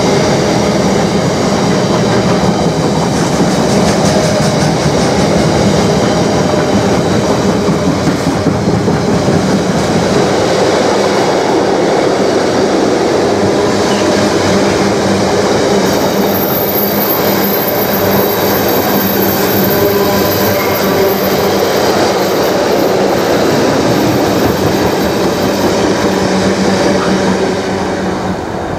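Freight train of loaded container flat wagons rolling past at speed, a steady rumble and rattle of wheels on the rails. A thin high whine comes in for the middle third, and the sound dips briefly near the end.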